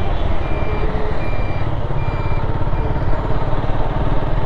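Suzuki Gixxer SF's single-cylinder engine running steadily under way, mixed with road and wind noise. A short high electronic beep sounds four times in the first three seconds or so.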